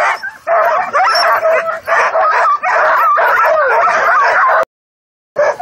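A team of harnessed sled dogs barking and yelping over one another at hook-up, eager to run. The sound breaks off into silence for under a second near the end.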